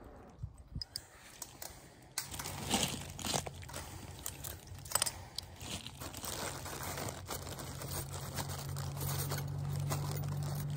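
Wire fence clips being fastened to a steel T-post with a hand tool: scattered short clicks, scrapes and crunches of wire against the post, with gravel and dry leaves crunching underneath. A low steady hum comes in about two seconds in and grows louder toward the end.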